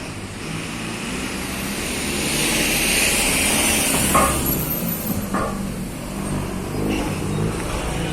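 A motor vehicle passing on the street, its engine and tyre noise growing louder to a peak about three or four seconds in, then easing off, with two short clicks near the middle.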